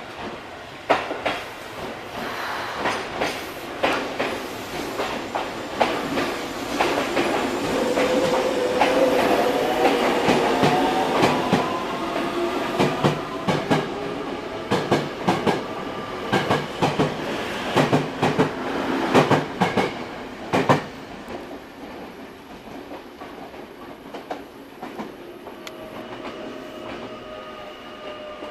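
Tokyo Metro 03 series electric train pulling away: its traction motors whine, rising in pitch as it accelerates, while the wheels clack over rail joints and points. The clacking stops about twenty seconds in and the sound falls away as the train leaves.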